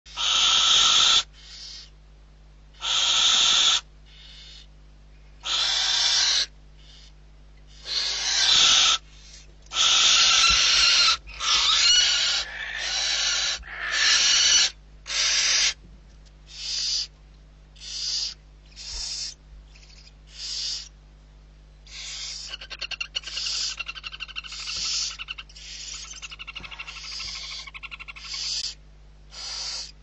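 Barn owl nestlings begging with repeated hissing screeches, each about a second long and coming every one to two seconds. The screeches grow shorter and softer in the second half. A rapid rattling chatter joins them near the end.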